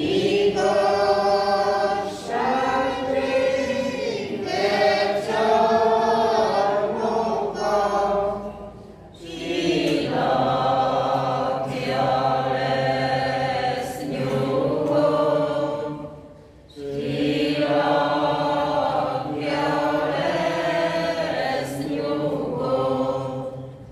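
Mixed church choir of women's and men's voices singing a Romanian hymn in long held phrases, pausing briefly for breath about 9 and 16 seconds in. The final line dies away near the end.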